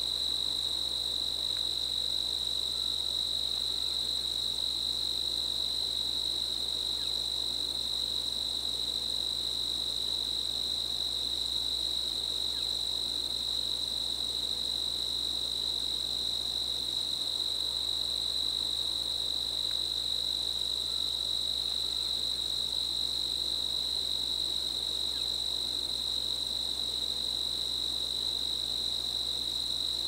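Crickets trilling, one steady, unbroken high-pitched tone that never pauses, over a faint hiss of field ambience.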